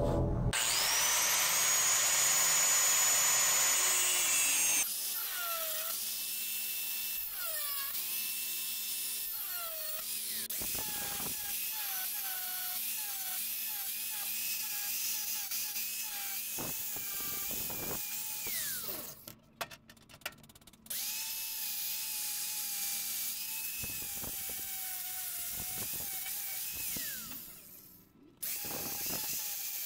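DeWalt angle grinder grinding a metal bracket. It comes up to speed with a rising whine and a loud harsh grind for the first few seconds, then runs on with a quieter whine that wavers as the disc bears on the metal. It cuts out briefly about two-thirds of the way through and again near the end.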